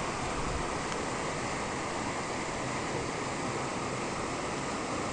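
Steady rush of a brook's water pouring over granite ledges in a small waterfall.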